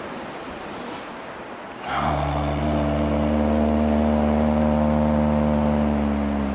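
A man humming one low, steady tone with closed lips, beginning about two seconds in after a short breath and held almost to the end. Sea surf washes underneath.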